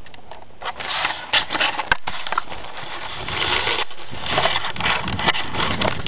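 Mountain bike riding over a rough, stony trail: tyres crunching and scraping over gravel and rock, with irregular rattles and sharp clicks from the bike.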